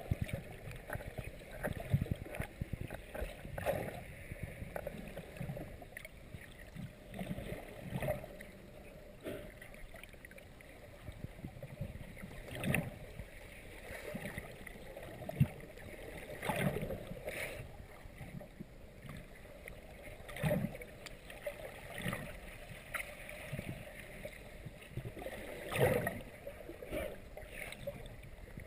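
Muffled underwater water noise picked up by a GoPro Hero 2 in its waterproof housing: an irregular run of swishes and soft thuds as water moves around the camera, with no steady tone.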